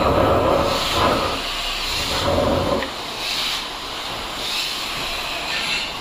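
Workshop machinery noise: a loud rushing sound for about the first three seconds, then short hisses repeating roughly once a second.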